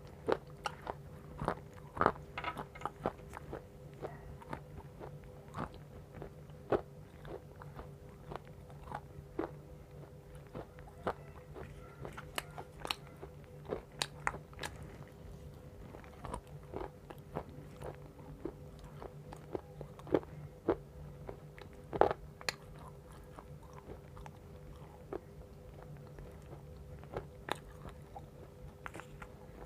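Chunks of dry multani mitti (fuller's earth clay) being bitten and chewed close to the microphone: sharp, irregular crunches and crackles follow one another, over a steady low hum.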